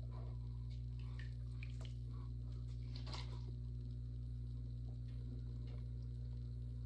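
Electric pottery wheel's motor humming steadily while it spins. Over the hum come soft wet dabs and drips of a sponge and fingers working wet clay, scattered through the first half, the loudest about three seconds in.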